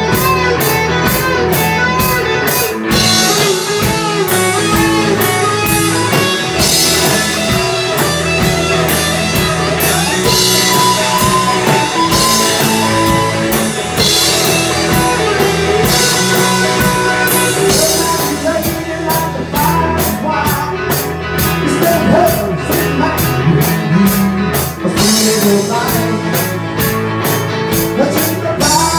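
Live rock band playing: electric guitars over a drum kit keeping a steady beat, with cymbals crashing every few seconds.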